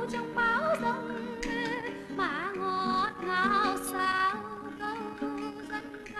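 A woman singing a slow lullaby with a wide vibrato, over sustained instrumental accompaniment.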